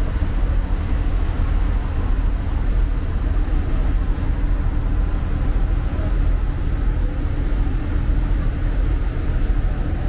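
Steady low rumble aboard a passenger ferry under way: the ship's engine droning, with wind and rushing water mixed in.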